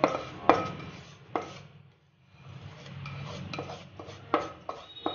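A spatula scraping roasted sesame and poppy seeds out of a non-stick pan into a steel vessel, with sharp metal knocks and clinks of pan and spatula against the vessel, a short lull about two seconds in.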